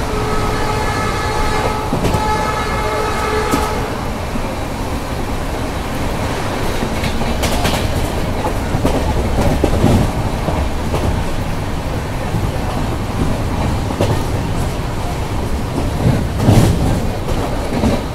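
Train horn holding a steady chord of several tones, stopping after about four seconds, over the continuous low rumble of a train running on the track, with wheel clatter and knocks from the rail joints.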